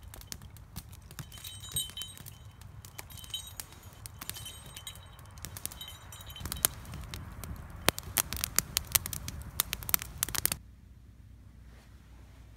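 Wood campfire crackling and popping, the sharp snaps coming thicker in the second half, with a few brief high whistling tones in the first half. The crackling cuts off suddenly near the end, leaving a low steady hush.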